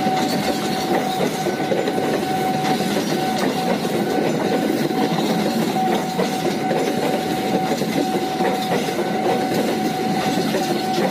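Fajar Utama Solo passenger train's coaches passing close by, a steady loud rumble of steel wheels on the rails, with a steady tone running under it.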